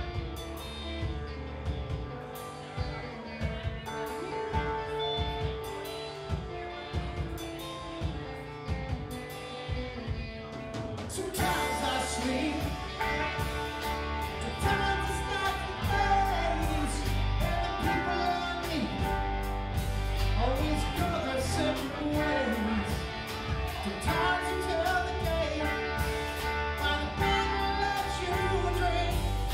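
A rock band playing live: guitar over a steady drum beat. About a third of the way through, the band gets louder and fuller and a singer comes in.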